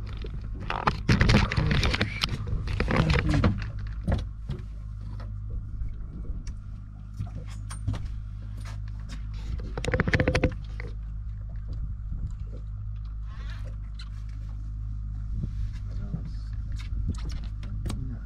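Spinning reel being wound in against a fish on a bent rod, with scattered sharp clicks, over a steady low hum. There are louder rushes of noise about a second in and again about ten seconds in.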